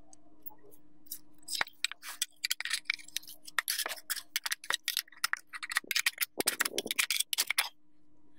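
A metal tool clicking, knocking and scraping at the seam of a ceiling fan's motor housing as the two halves are pried apart: a quick, irregular run of sharp clicks with a longer scrape near the end.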